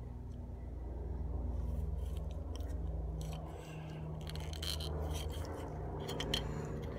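Light clicks and scrapes of fingers handling a small plastic model part, over a steady low hum.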